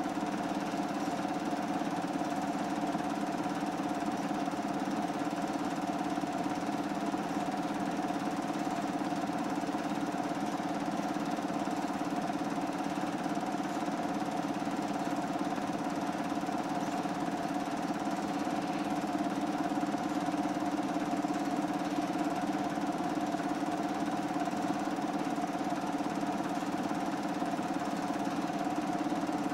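Steady motor hum holding a few fixed tones, with no change in pitch or level.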